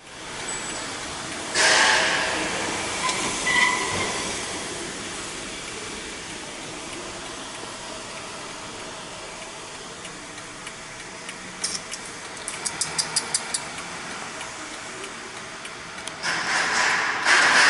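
Steady rushing noise of an underground car park, with louder whooshes near the start and near the end and a quick run of about ten sharp clicks a little past the middle.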